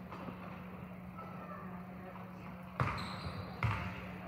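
Basketball bouncing twice on a gym floor, a little under a second apart.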